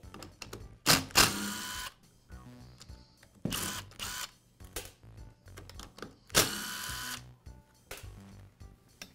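Cordless drill/driver spinning out the screws holding the recoil starter on an Echo trimmer: three short runs of motor whine about two to three seconds apart, over background music.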